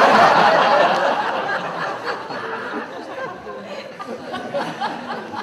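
Audience laughing, loudest at the start and dying down over a few seconds to scattered chuckles.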